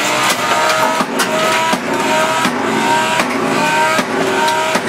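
Background rock music: a repeating electric guitar riff of short held notes, with a steady beat.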